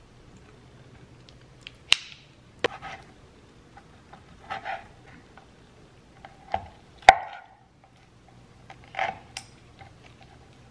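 Kitchen knife chopping kimchi and pork on a wooden cutting board: a handful of sharp, unevenly spaced knocks of the blade against the board, the loudest about seven seconds in.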